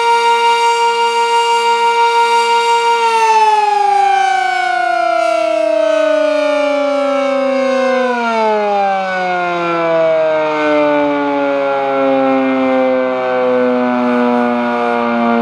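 Village civil defense siren holding a steady tone with a slight regular pulsing, then winding down from about three seconds in, its pitch falling in a long slide with a steeper drop about eight seconds in. It is still sounding at a low pitch at the end.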